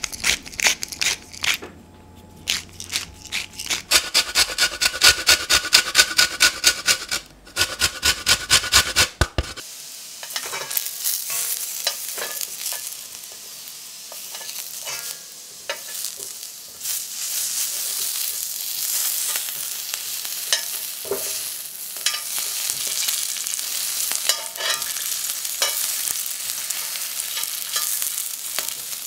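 New potatoes frying in oil in an iron pan: a steady sizzle, with light clicks as metal tongs turn them. Before it, for the first third, there is a quick run of rhythmic scraping strokes, about five a second, while raw chicken breasts are seasoned.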